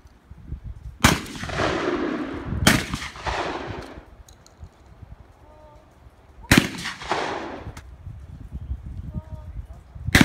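Shotgun shots on a trap line: three sharp shots, the first two about a second and a half apart, the third about four seconds later, and a fourth just at the end. Each is followed by about a second of rolling echo.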